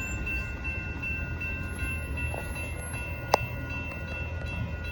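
Union Pacific autorack freight train rolling through a grade crossing, a steady low rumble of railcars. Over it the crossing bell rings steadily with the gates still down. A single sharp click about three seconds in.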